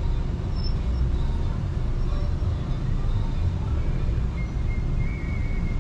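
Steady low rumble of a car's engine and tyres while driving slowly, heard from inside the car. A faint thin high tone comes in about four seconds in.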